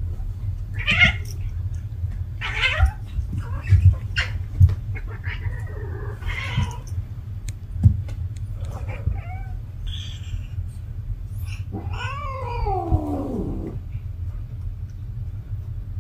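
A cat in heat yowling in a string of short calls, then one longer call about twelve seconds in that falls in pitch. A steady low hum and a few soft knocks run underneath.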